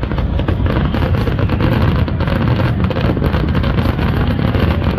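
Fireworks display in a dense barrage: a steady heavy rumble packed with rapid crackling, with no single burst standing out.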